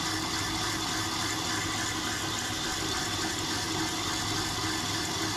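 Small handheld electric whisk running steadily in a bowl, beating egg yolks and sugar until light and creamy, with an even rushing whir.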